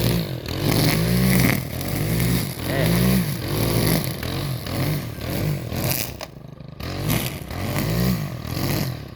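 A small engine revving up and down over and over, its pitch rising and falling about once a second.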